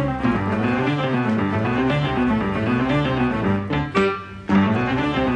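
Instrumental background music with a moving bass line under pitched melody notes; it drops out briefly about four seconds in and then comes back in.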